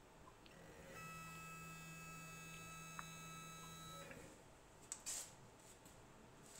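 The SHARK RS1000 Pro router table's motorized fence drives along its track with a faint, steady electric whine for about three seconds, then stops. About a second later come a couple of short, sharp knocks.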